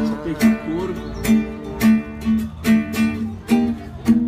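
Acoustic guitar strummed in a steady rhythm, chord strokes landing about twice a second.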